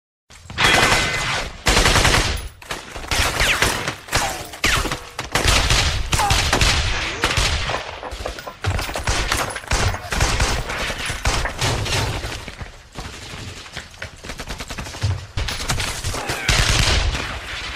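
Dense battle gunfire: many shots in rapid, overlapping volleys with heavy low thuds, starting suddenly out of silence and running on without a break.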